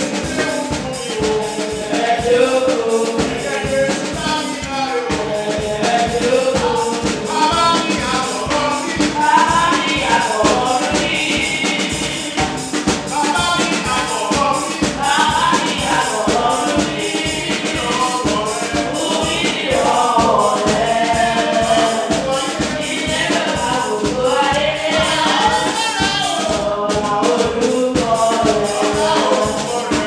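A group singing a gospel worship song together, backed by drums keeping a steady beat.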